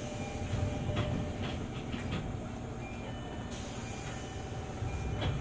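JR 205 series 600 electric train running, with a steady rumble of wheels on rail and a few sharp clicks about a second in and again near the end.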